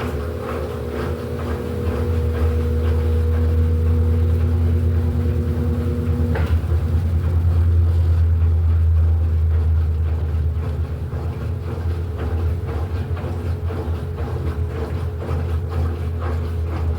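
Electrolux LED14 14 kg washing machine running its quick program: a loud low motor rumble with a rhythmic churning beat, swelling and then easing off. A separate steady hum cuts off with a click about six seconds in.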